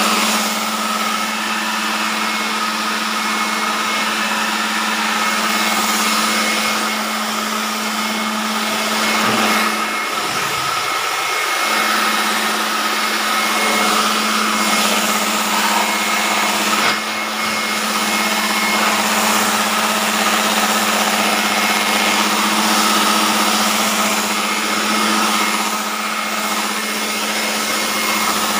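Electric fan running with a steady whir over a low hum. The hum drops out for a couple of seconds about ten seconds in, then returns.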